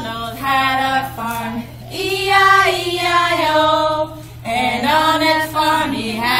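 Women singing a simple children's song without accompaniment, in short phrases of held notes with brief breaths between them.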